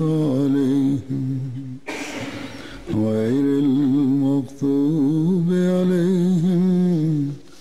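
A man's voice chanting Arabic religious recitation in long, held, ornamented notes, in phrases with short pauses between them.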